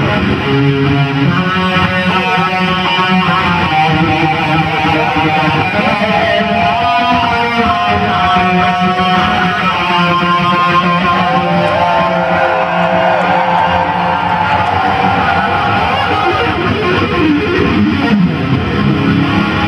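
Distorted electric guitar playing lead lines, with long sustained notes that bend up and down in pitch over a steady backing.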